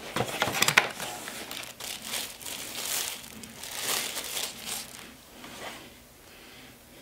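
Wrapping crinkling and rustling as a wireless router is unwrapped and handled, in uneven rustles with a few sharper crackles, fading out near the end.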